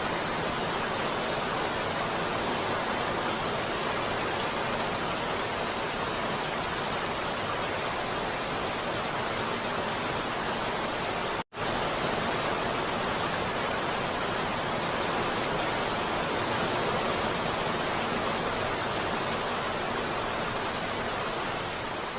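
Steady heavy rain falling, a dense even hiss, cutting out completely for an instant about halfway through.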